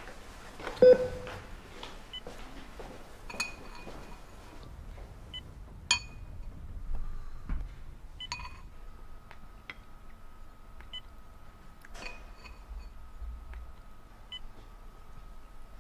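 Scattered light clinks of a spoon against ceramic bowls, the loudest about a second in. A faint steady high tone runs underneath from about halfway.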